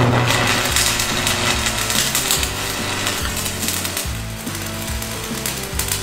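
Stick (shielded metal arc) welding: the arc crackling and sizzling steadily as a welding rod is run along a steel plate. Background music with a stepping bass line plays underneath.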